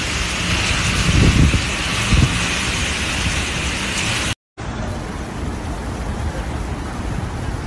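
Torrential rain pouring down in a thunderstorm, a loud steady rush with two deep low rumbles about one and two seconds in. After a brief break, a quieter steady wash of water and engine noise as cars drive through a flooded street.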